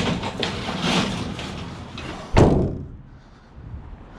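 Rustling and clattering, then a vehicle door slammed shut once, about two and a half seconds in, the loudest sound.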